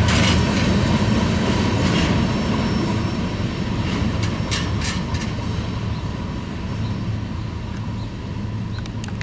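Tail end of a freight train rolling past and away: steel wheels rumbling on the rails, with a few sharp clicks about halfway through. The sound fades steadily as the last car recedes.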